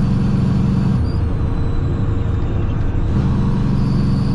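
Heavy truck's diesel engine running while driving, heard from inside the cab. Its steady drone drops away about a second in for roughly two seconds, then comes back.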